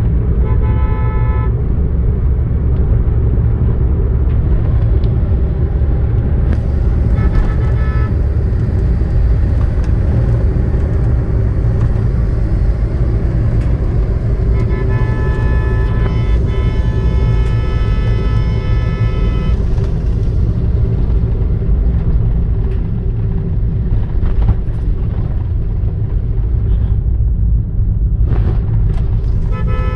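Steady low road and engine rumble of a car on the move, heard from inside, with vehicle horns sounding: a short blast right at the start, another around eight seconds in, a long one of about five seconds in the middle, and a short one at the end.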